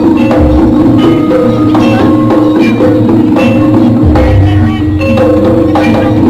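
Loud live Javanese jaranan gamelan music: metal mallet-struck instruments and gongs playing a steady repeating pattern over drum strokes.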